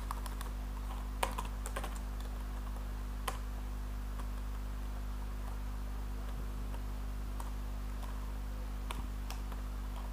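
Computer keyboard keys tapped now and then, a few scattered keystrokes with long gaps between them, over a steady low hum.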